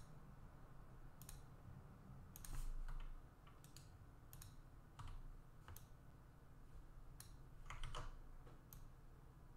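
Faint computer mouse clicks, scattered single clicks about one or two a second, as spline points are placed and menus picked in CAD software, over a low steady room hum.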